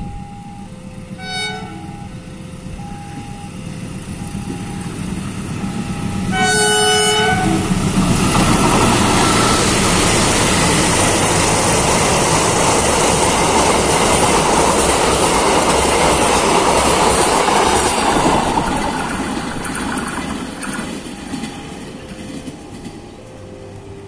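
CC 201 diesel-electric locomotive sounding a BB 306-type horn for its semboyan 35 signal: a short toot, then a blast of about a second. The locomotive and its passenger coaches then pass close by, engine and wheels on the rails loud for about ten seconds before fading away.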